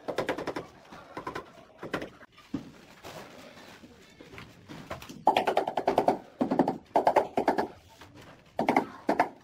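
Steel trowel scraping mortar against a ceramic wall tile in a series of short strokes, the loudest and busiest run about halfway through.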